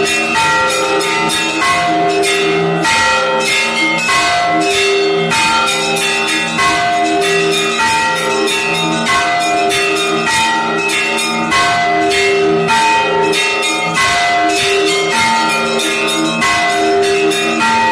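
Russian Orthodox church bells rung together in a fast, continuous peal: quick strikes of the small high bells over recurring strokes of the larger, lower bells, in a steady rhythm.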